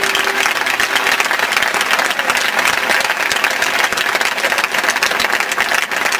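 Crowd applauding, a dense steady patter of many hands clapping, as the last held note of the routine's music fades out in the first half second.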